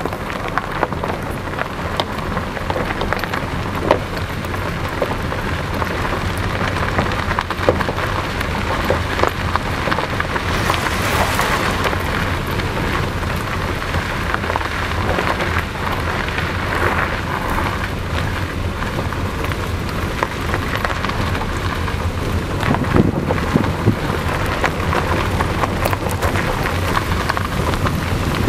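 Steady tyre and wind noise of a car driving along a street, heard from the moving car, with a low hum underneath and a few light knocks.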